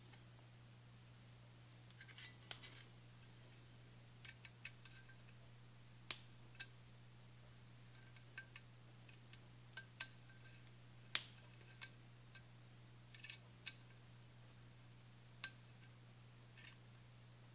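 Faint, scattered metal clicks and ticks of an L-shaped hex key turning and being reset in the clamp bolts of a BCM KMR Alpha handguard as they are tightened, the sharpest click about eleven seconds in.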